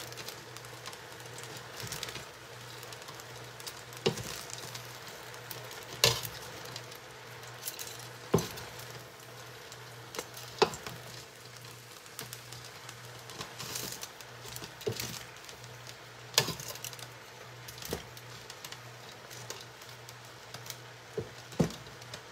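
Pancit noodles sizzling faintly in a large stainless-steel pot as they are tossed and mixed, with sharp clacks of metal tongs and spatula against the pot every couple of seconds.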